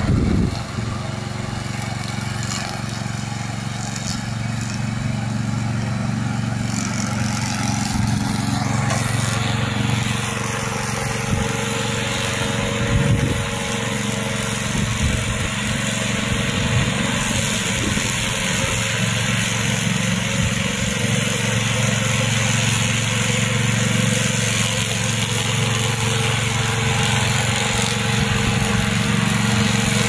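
Loncin 9 hp petrol engine of a tracked remote-control lawn mower running steadily under load as it cuts through tall dry grass.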